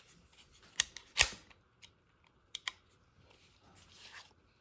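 Sharp metallic clicks and clacks from handling a GSG Firefly pistol as its slide is drawn back and locked open: two loud clacks about a second in, a quick double click a little later, then a soft rustle.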